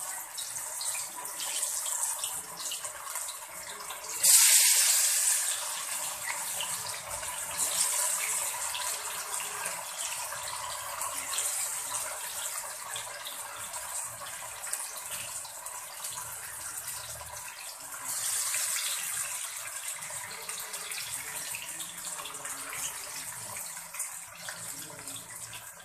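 Masala-coated kilanga meen (whiting) pieces deep-frying in hot oil in a kadai: a steady hissing, crackling sizzle. It surges sharply about four seconds in as another piece goes into the oil, and swells again a little past the halfway mark.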